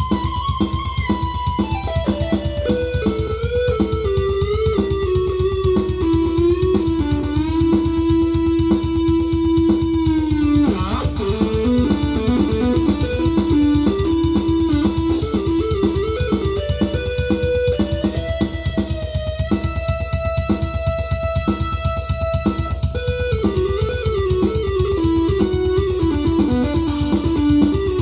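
Korg Krome synthesizer playing an electric-guitar-like lead melody over a fast, steady drum pattern, with a downward pitch bend about eleven seconds in.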